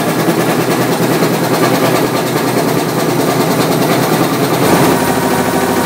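Antique WWII high-pressure torpedo and dive air compressor running with its Ford V8 drive motor, a steady, fast, even mechanical clatter. A deeper note joins about four and a half seconds in.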